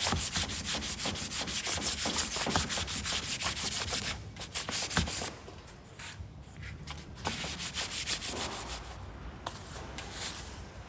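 600-grit wet-and-dry paper wrapped around an oil stone rubbed rapidly back and forth on the aluminium thermostat-housing face of a Holden Cruze 1.8 F18D4 cylinder head, cleaning the sealing surface, at about five strokes a second. It pauses about four seconds in, resumes in quieter runs, and tapers off near the end.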